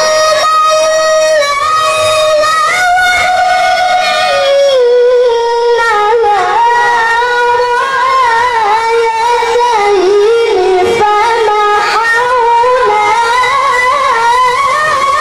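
A boy's high voice chanting Quranic recitation in the melodic tilawah style into a microphone, with long held notes decorated with wavering ornaments that slide between pitches, and a climb to higher notes near the end.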